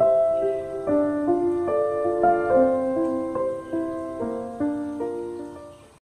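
Piano music, a run of single notes about two a second, fading out near the end.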